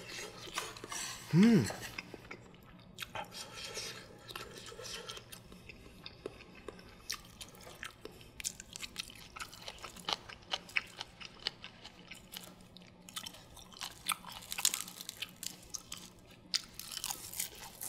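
Close-up mouth sounds of a person chewing and eating rice and soft egg, with scattered smacks and small clicks of chopsticks and spoon against the dishes. A short hummed "mm" rises and falls about a second and a half in and is the loudest sound.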